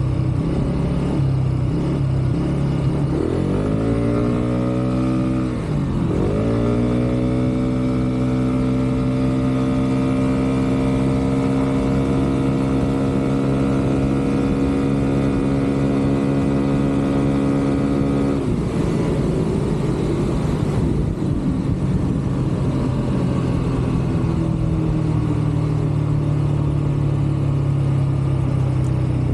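Kymco KRV Moto scooter engine through its stock exhaust: idling, revved up twice, then held at steady high revs for about ten seconds before dropping back and settling to idle.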